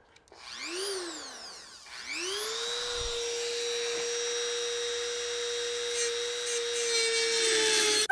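Dremel rotary tool with a cut-off wheel spinning freely: the motor revs up and falls away once, then spins up again about two seconds in and holds a steady high-pitched whine at full speed.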